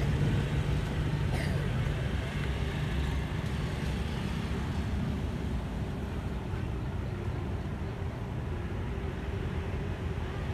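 Steady low rumble of city road traffic, motorbikes and cars on a street close by.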